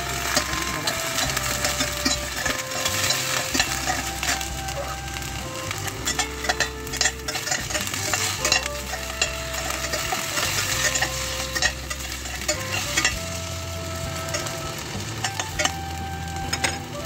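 Potato chunks sizzling as they fry in oil in a stainless steel pot, with a utensil scraping and knocking against the pot as they are stirred and turned.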